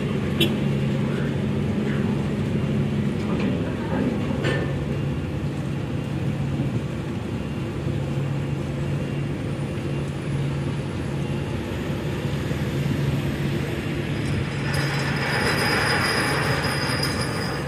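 A large ship's engines droning steadily with a low hum while the ferry berths. About fifteen seconds in, a rushing noise swells for a couple of seconds.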